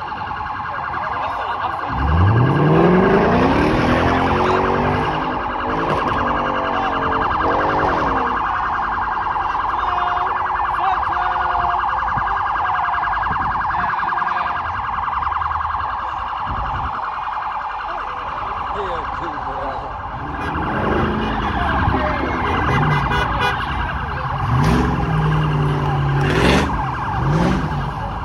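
A car's tyres screech steadily as it spins them on the pavement in a street-takeover burnout, its engine revving hard. The engine rises sharply in pitch about two seconds in and revs again several times near the end.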